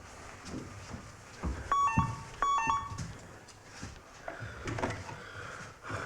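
Electronic telephone ringer trilling in two short bursts about half a second apart, each a quick high-then-low pair of tones.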